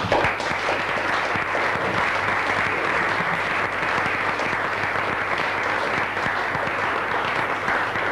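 Audience applauding steadily, a dense clapping that starts suddenly as the song ends.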